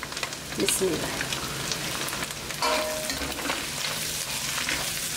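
Sliced capsicum sizzling in hot oil in a steel wok on high heat, stirred with a metal ladle that scrapes against the pan.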